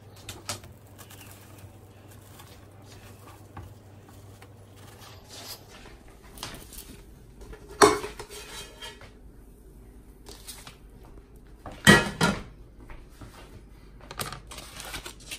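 Spatula scraping and tapping in a nonstick frying pan as grilled cheese sandwiches are lifted out and slid onto paper plates, with scattered light knocks and two louder clanks, one about halfway through and another some four seconds later.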